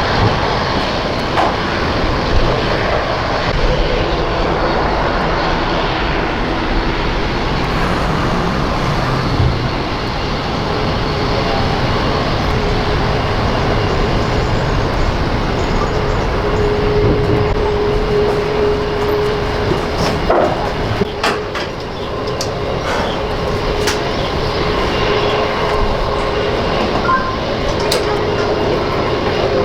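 Aircraft engines running with a loud, even rumble. A steady hum joins about halfway through, and a few sharp clicks sound in the second half.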